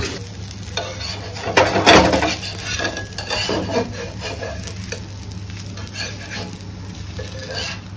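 Spatula scraping and knocking on a flat dosa pan while a masala dosa with potato filling sizzles on it. The loudest scrape comes about two seconds in.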